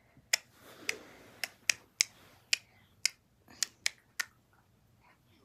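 A series of about ten sharp, unevenly spaced clicks, one every half second or so, over the first four seconds, with a faint hiss around the first second.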